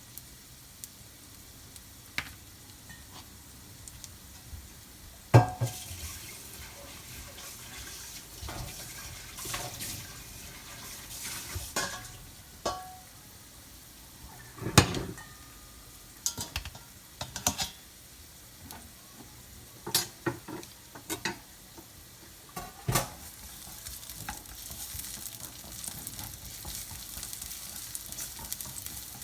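Food sizzling in a frying pan while being stirred, with repeated clinks and knocks of a utensil against the pan; the sizzle grows louder near the end.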